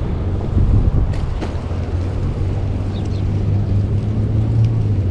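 Wind rushing over a chest-mounted action camera's microphone while riding a bicycle, a steady low rumble with a hum underneath. Two sharp clicks sound about a second in.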